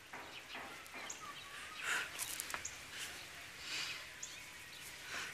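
Quiet outdoor ambience with faint, occasional bird chirps every second or so, and a few soft rustling swells.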